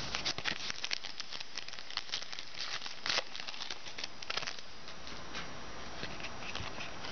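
Trading card packs and cards being handled: a run of small crinkles and clicks, with a stronger rustle about three seconds in.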